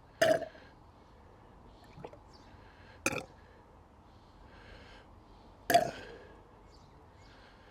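Upturned plastic gear-oil bottle glugging as air bubbles up into it while the oil drains into the gearbox fill hole: three loud short glugs about two and a half seconds apart, with a fainter one between the first two.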